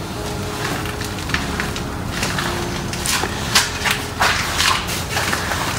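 A cloth rag wiping and dabbing over the rough surface of a painted concrete casting: a run of short swishing strokes that come more often from about two seconds in.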